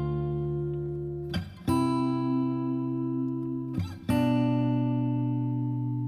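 Background music: sustained chords, a new one struck about every two and a half seconds and left to ring out and fade.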